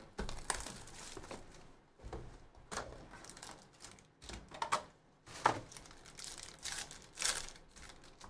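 Hobby box and foil-wrapped trading card packs being handled: cardboard flaps opened and wrappers crinkling and tearing, heard as an irregular run of sharp rustles and clicks, with a few louder ones past the middle.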